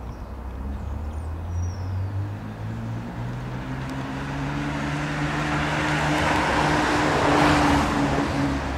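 A motor vehicle passing on a nearby road: a low engine hum with tyre noise that swells, loudest about three-quarters of the way through, then eases off slightly.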